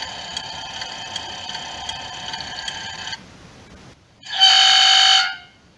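Sound module in a scale-model Citroën 2CV playing a recorded car engine running steadily through its small loudspeaker. The engine sound cuts off about three seconds in. About a second later the horn sounds once, a loud steady beep lasting about a second.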